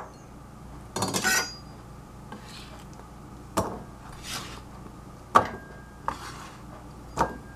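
Diced cucumber being swept with a chef's knife off a plastic cutting board into a ceramic bowl: a quick cluster of clinks about a second in, then single sharp knocks of the blade and pieces against bowl and board about every two seconds, with soft scraping between.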